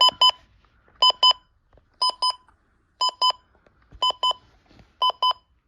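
Midland weather radio's alarm clock beeping: a double beep repeating about once a second.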